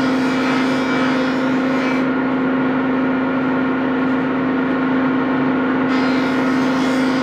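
Steady machine hum: one low, even drone with overtones above it, unchanging throughout.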